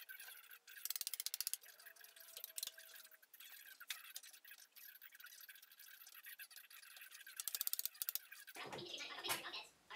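Faint hiss with two short runs of rapid clicking, about a second in and again shortly before the end, as a hand tool scrapes and chips at cured epoxy along the mold. A louder scraping rustle starts near the end.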